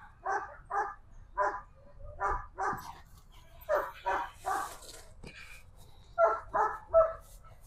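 Working protection dog barking repeatedly in short, sharp barks, in quick runs of two or three with a brief pause a little past halfway, while held on the leash.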